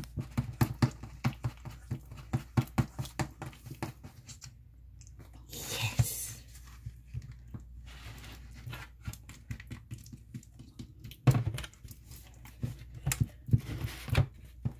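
Plastic stirrer working sticky glitter glue slime in a plastic tub: a run of quick wet clicks and taps against the tub, with a pause near the middle.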